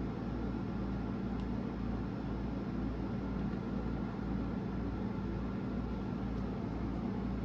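Steady low machine hum with a slow throb pulsing about twice a second and a few faint ticks.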